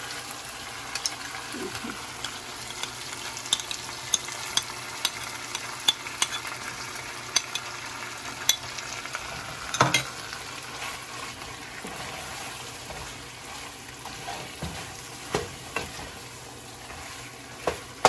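Cream being stirred into chicken in a still-hot pan: repeated clicks and scrapes of the spoon against the pan over a steady sizzle. One louder knock comes about ten seconds in, and the clicks thin out after it.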